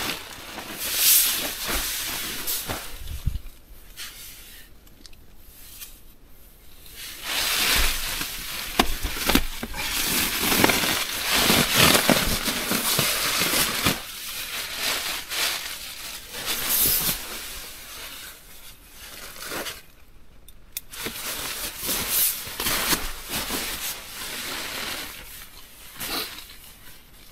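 Nylon sleeping bag, quilt and inflatable sleeping pad rustling and crinkling as they are handled and spread out inside a tent, in irregular bursts with a few quieter pauses.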